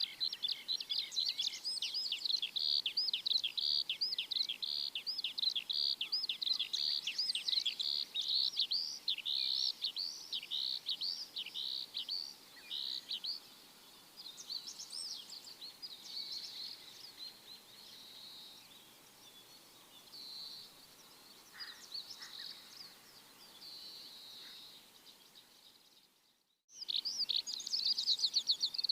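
Many small birds chirping in a dense, rapid chorus of high-pitched notes, thinning out and growing quieter about halfway through. Near the end the sound cuts out for a moment, then the dense chirping resumes.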